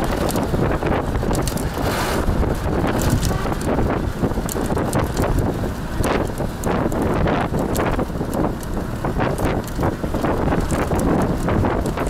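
Wind rushing over the microphone and engine and road noise from a moving vehicle, steady and loud, with frequent short knocks and rattles from the ride.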